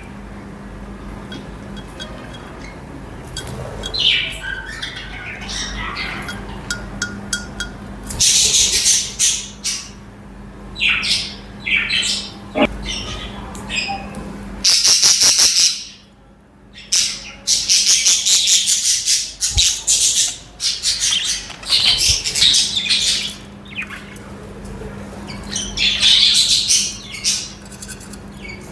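A group of budgerigars chattering, chirping and squawking in bursts of rapid high-pitched calls, over a low steady hum.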